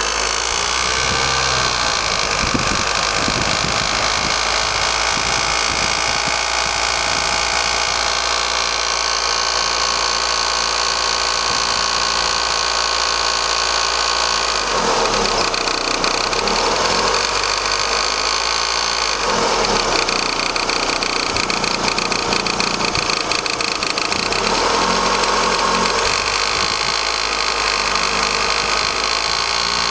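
Vauxhall Astra mk4 1.6-litre 16-valve petrol engine idling, heard close up in the engine bay, with the tapping and vibration noise that the owner calls weird and has not explained. Its note wavers a few times in the second half.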